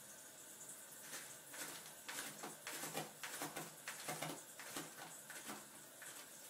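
Cat scratching and pawing at litter in a plastic toilet-training tray set in the toilet seat: a run of quick, irregular scratches starting about a second in and stopping near the end.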